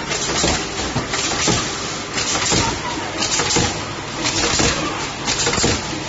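HG 818 rat trap board making machine running, its pneumatic cylinders and valves cycling with a quick, uneven series of short hissing clacks, about two a second, over a steady mechanical din.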